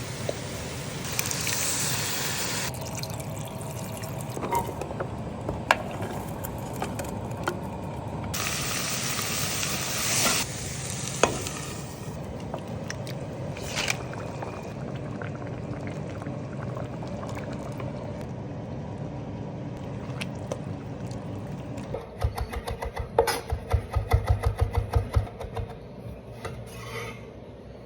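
Kitchen cooking sounds cut together: stirring, liquid and sizzling in pans, with sharp clicks and knocks here and there. About six seconds before the end comes a quick run of loud knocks, the loudest thing heard.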